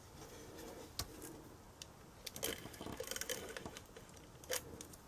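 Stampin' Seal adhesive tape runner being run across paper, with soft scattered clicks and small taps.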